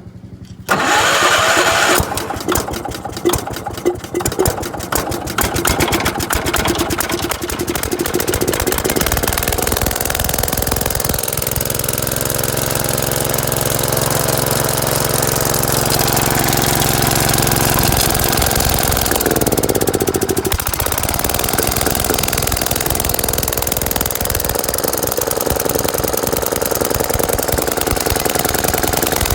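Gravely Commercial 12 tractor's engine catching on the choke about a second in and running rough and uneven for several seconds. It then settles into steady running, with a brief change in engine speed about two-thirds of the way through.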